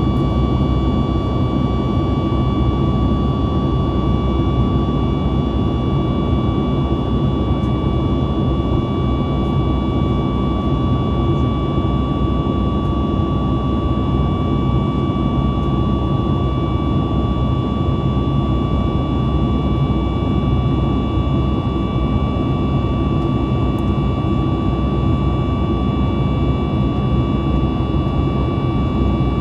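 Steady cabin noise of a Boeing 737 MAX 8 in flight, from its CFM LEAP-1B engines and the rushing air: a constant low rumble with a thin, unchanging whine above it.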